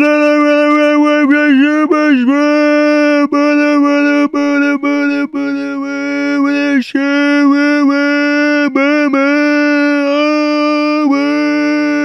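Meme scream sound effect: a voice held on one steady note, loud, with a few quick pitch wobbles in the first couple of seconds and several brief breaks.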